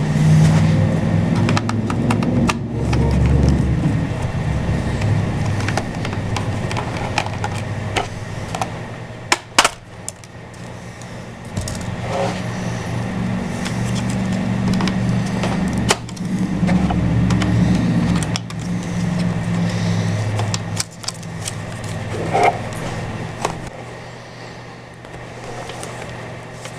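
A small motor whirring in two long stretches with brief stops, with sharp clicks and a knock about nine seconds in; it fades out after about twenty seconds, leaving only faint clicks.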